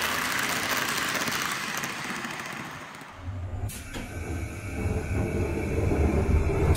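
N-gauge model train (TOMIX 189 series) running on the layout track. First there is a steady hiss of wheels and motor as it passes close by. From about three seconds in comes a low rattling rumble picked up by a camera riding on the train, growing louder toward the end.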